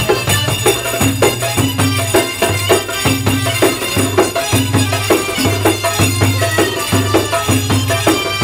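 Egyptian folk music for a tanoura dance: hand-played frame drums and tambourine keep a fast, even beat over a low repeating bass tone.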